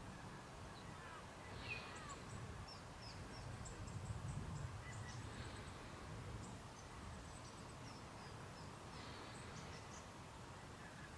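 Faint outdoor ambience of wild birds: many short, high chirps scattered throughout, with a brief falling whistle about two seconds in, over a low rumble that swells about four seconds in.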